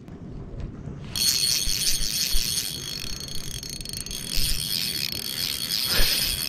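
Spinning reel clicking fast and steadily, starting suddenly about a second in, as a hooked trout pulls against it.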